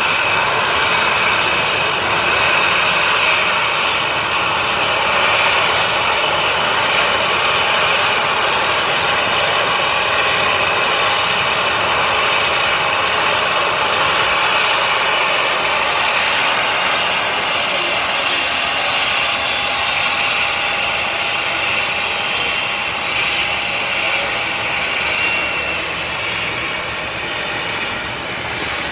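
Boeing 737-800's two CFM56-7B turbofan engines running at taxi idle as the airliner taxis slowly in: a loud, steady jet whine and rush, easing slightly over the last few seconds.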